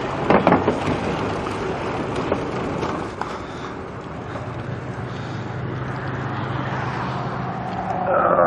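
Steady rush of wind and road noise while riding a bicycle. A low engine hum from passing traffic comes in about halfway and grows louder near the end.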